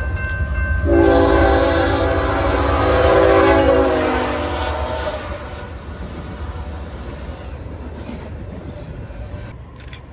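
BNSF diesel freight locomotive's multi-chime air horn sounding one long blast, from about a second in until about four and a half seconds in, over the low rumble of the locomotives and train passing close by. The rumble carries on after the horn stops.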